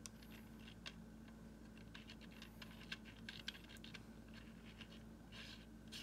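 Faint scattered light clicks and scratching as fingers handle small parts on an airgun's metal receiver, with a brief scratchy rustle near the end, over a steady low hum.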